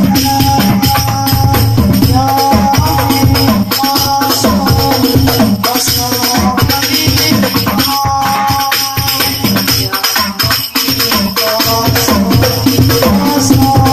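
Hadrah ensemble of rebana frame drums struck by hand in a fast, dense interlocking rhythm, under a voice singing long, gliding sholawat phrases.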